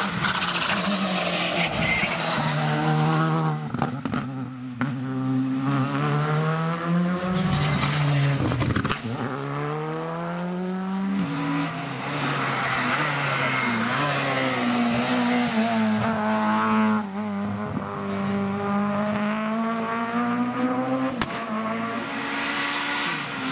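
Rally cars at full throttle on a tarmac stage, with the Skoda Fabia rally car first. The engines rev up hard, and each pitch climb breaks off and drops back as the next gear goes in. A few short sharp cracks sound between shifts.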